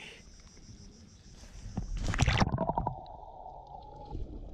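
A person diving into the sea: a loud splash about two seconds in, then the sound turns muffled, heard underwater, with a steady hum.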